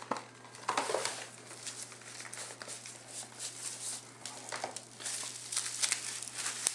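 Packaging being opened by hand: crinkling and rustling with scattered small clicks and taps, busier and louder from about five seconds in.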